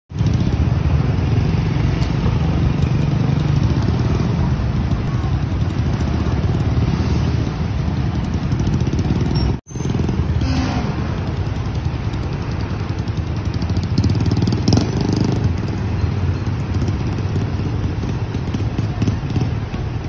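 Road traffic moving through a flooded street: motorcycle and truck engines running over a steady low noise, cut off briefly about ten seconds in.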